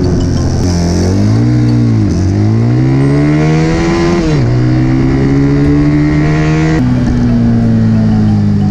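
Single-cylinder four-stroke 125cc Chinese (Zongshen) engine in a small motorcycle, revving hard under full throttle. Its pitch climbs in three runs, each broken by a sudden drop as it shifts up, about two and four and a half seconds in. About seven seconds in the throttle is shut and the engine note falls away as the bike slows.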